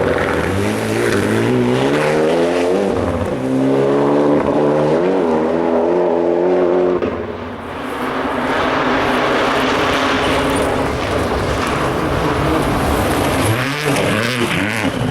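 Rally car engine revving hard as it passes, its pitch climbing and dropping sharply at each gear change. About halfway through it fades into a more even rushing noise, and near the end an engine climbs again.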